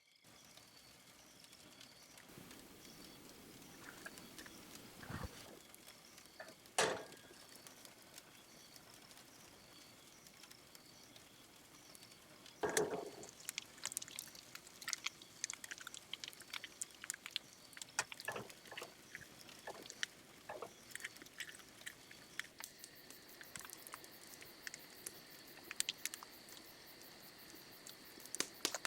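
Irregular light clicks and knocks, with a few louder knocks, over a faint steady high-pitched hum.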